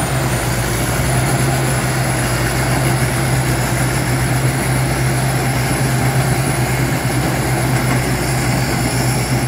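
Tracked rice combine harvester's engine and threshing machinery running steadily under load as it cuts and threshes rice in a flooded paddy, a constant low drone with a rushing mechanical noise.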